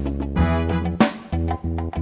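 Upbeat background music: sustained instrumental notes over a bass line, with a sharp drum hit about a second in.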